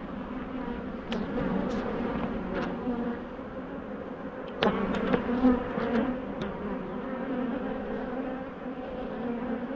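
Honeybees buzzing around an open hive in a steady hum. Several sharp knocks and clicks come through it, the loudest cluster about halfway through.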